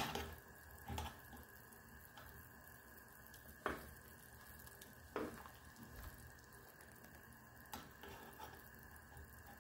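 Pot of macaroni and vegetable soup simmering faintly, with a few short knocks of a ladle against the pot as it is stirred.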